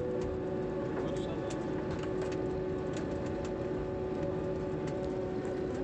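Airliner cabin noise on the ground: a steady engine hum with a couple of steady tones running through it as the aircraft taxis, with a few faint clicks.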